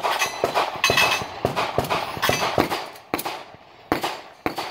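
Glock pistol fired in a rapid string at steel plate targets: about a dozen sharp shots, roughly three a second, with a short pause a little past three seconds in.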